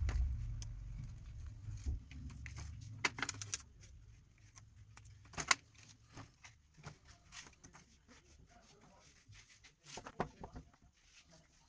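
Scattered small clicks, scrapes and rustles of thread and copper coil wire being handled while a table fan's stator coils are stitched tight, with a low rumble fading out over the first few seconds.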